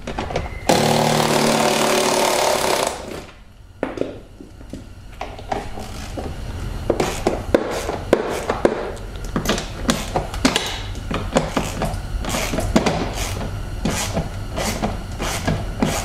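A power screwdriver whirs for about two seconds near the start, turning a 10 mm bolt. After that comes a long run of quick clicks from a hand ratchet working the tight bolts.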